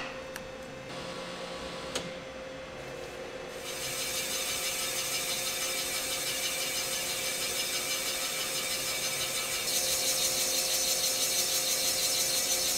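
Cylinder boring machine's spinning boring bar cutting the repair sleeve in an AMC 258 straight-six block, taking it to just under the finished 30-thousandths-oversize bore so there is material left to hone. There is a click at the start and another about two seconds in, then the cutting noise sets in about four seconds in over a steady machine hum and gets louder near ten seconds.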